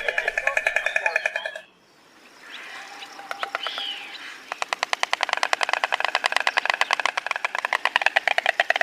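Stork bill-clattering: a rapid run of clacks, many a second. It breaks off just under two seconds in, gives way to a quieter stretch, and starts again about four and a half seconds in.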